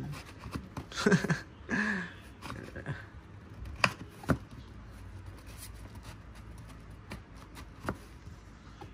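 Handling noises from a Stihl 024 chainsaw being turned over and its parts worked by hand: faint rustling with three sharp clicks or knocks, two close together about four seconds in and one near the end.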